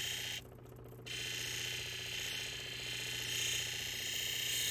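Steady motor hum of a lapidary polishing machine, with the hiss of an opal being polished on the spinning 14,000-grit final polishing wheel. The hiss cuts out for about half a second shortly after the start, then resumes.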